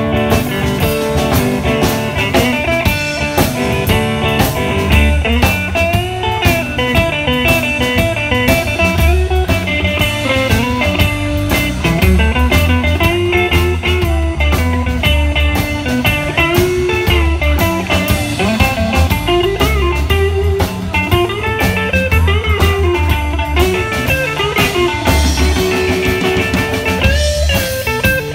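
Live blues band playing an instrumental break: electric guitar playing bending lead lines over electric bass and a drum kit.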